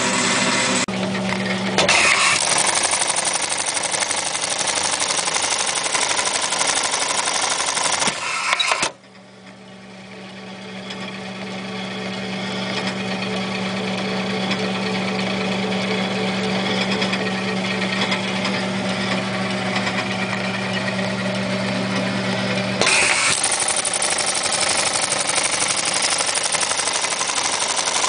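Reece 101 keyhole buttonhole machine sewing a buttonhole with a fast, dense mechanical rattle that stops abruptly about nine seconds in. While the machine stands its motor keeps up a steady low hum. The rattle of the next stitching cycle starts again near the end.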